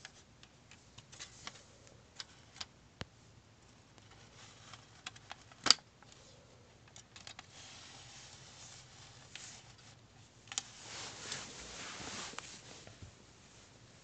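A plastic smoke detector's housing and a 9-volt battery being handled by hand: scattered clicks and taps, one sharp snap about halfway through, and a stretch of rubbing and scraping near the end.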